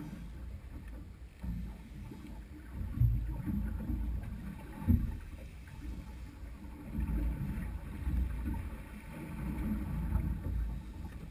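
Low, uneven rumble of wind and water around a small open boat, with two dull knocks, about three and five seconds in.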